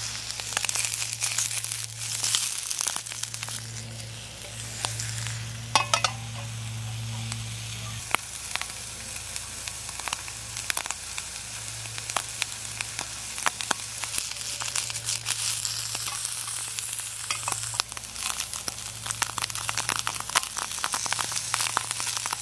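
False morel mushrooms frying on high in a skillet, sizzling with frequent popping and crackling. A steady low hum runs underneath.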